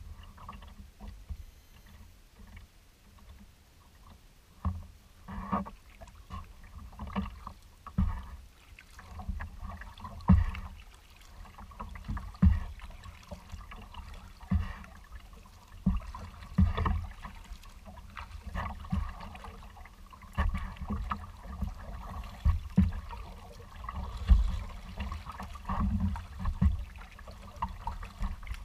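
Kayak being paddled on choppy water: paddle strokes and small waves splashing against the hull, in surges about every two seconds, over a low rumble.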